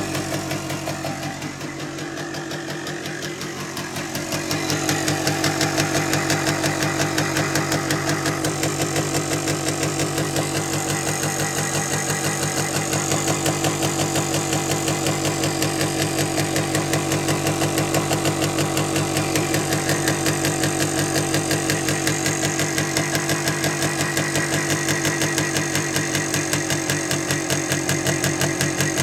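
1974 Yamaha DT360A's single-cylinder two-stroke engine idling steadily, a little softer at first and then louder from about four seconds in.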